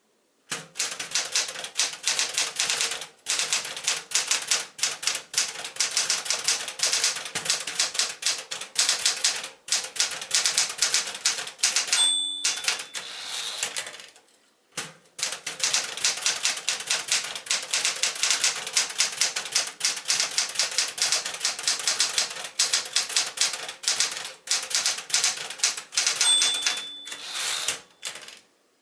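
1974 Smith-Corona Galaxie Twelve manual typewriter being typed on in fast, steady runs of key strikes. Its margin bell rings twice, about halfway through and near the end, each followed by a short pause in the typing.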